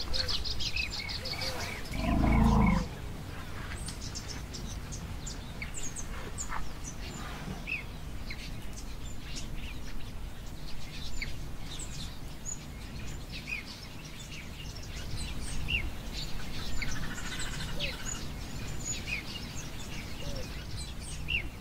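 Wild birds calling, many short chirps and whistles scattered throughout, over a faint low hum. About two seconds in, one loud low sound lasting under a second stands out above them.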